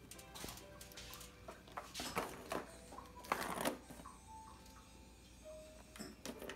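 A kitten playing with a round cardboard scratcher that has a plastic ball track: irregular scratching and clattering, busiest in the middle, with one sharp clack a little past three seconds.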